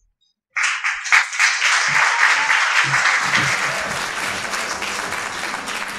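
Audience applause, starting suddenly about half a second in and slowly dying down.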